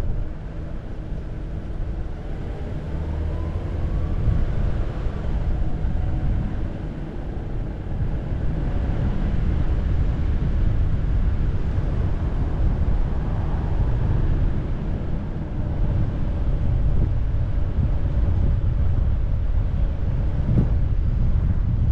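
Steady low rumble of a car driving slowly, heard from inside the cabin, with a faint engine or drivetrain tone that slowly rises and falls as the car speeds up and eases off. A single faint click comes near the end.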